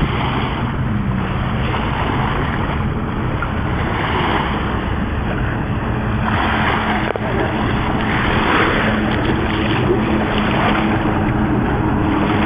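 Steady wind buffeting the microphone over surf washing on the beach.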